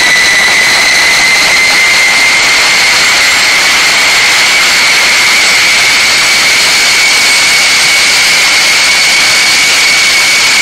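Homemade turbojet engine running steadily on a test stand with its afterburner lit: a loud roar carrying a high whine that creeps slightly higher in pitch.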